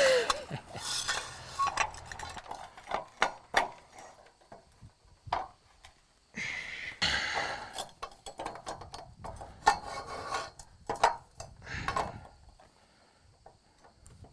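Irregular metal clinks, clanks and knocks as tools and steel sawmill track parts are handled and adjusted, with a few brief scraping sounds in between.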